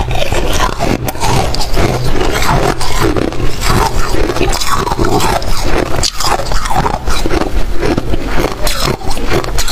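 Close-miked biting and chewing of a chunk of freezer frost and ice: dense, continuous crunching and crackling.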